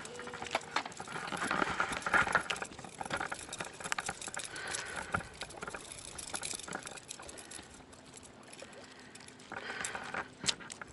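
Scattered clicks and light taps from a fishing rod and line being handled while a caught mackerel is brought in.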